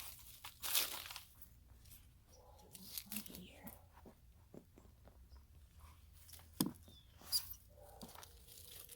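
Gloved hands rummaging through loose potting soil and old plant debris in a container while digging out potatoes: irregular rustling and crunching, with a longer rustle about a second in and two sharp knocks a few seconds later.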